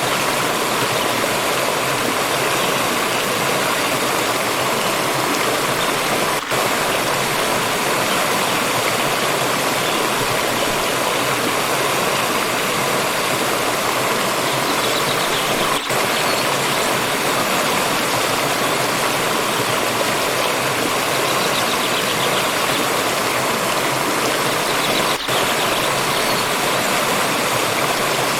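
Steady rush of a flowing forest stream, dense, unbroken water noise, with three momentary dips in level.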